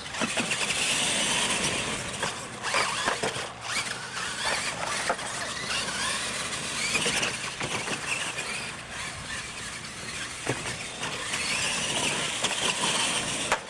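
Radio-controlled monster trucks racing on dirt: a high, wavering whine from their electric motors and drivetrains that rises and falls with the throttle, with several sharp knocks as the trucks hit and land off the wooden ramps.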